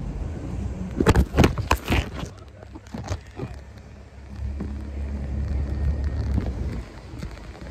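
Small boat motor running with a low, steady rumble, with a cluster of sharp knocks between about one and two seconds in.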